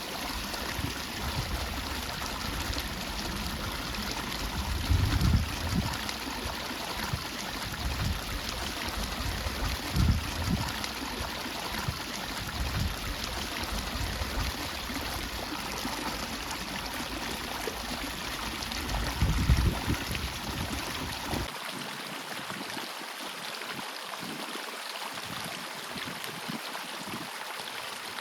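Steady rush of water running into a pond at its inflow drop. Irregular low bumps come and go over it and stop about three-quarters of the way through.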